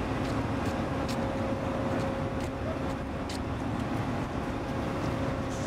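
Ship's heavy-lift crane machinery running with a steady low drone and a faint steady whine as it holds and moves a suspended rail car, with a few light clicks.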